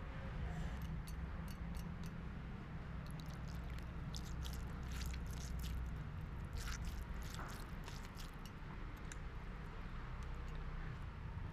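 Person chewing a mouthful of fried leafy greens (saga bhaja) close to the microphone: a run of small mouth clicks, densest in the middle, over a steady low rumble.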